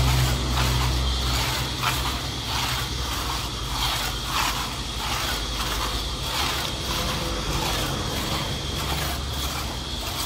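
Two-man crosscut hand saw rasping through a log, drawn back and forth in a steady rhythm of about two to three strokes a second. A low hum in the background stops about a second and a half in.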